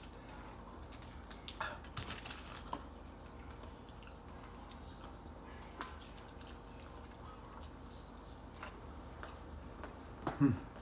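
Faint, sparse mouth clicks and smacks of a person chewing chicken nuggets, with a brief voiced sound near the end.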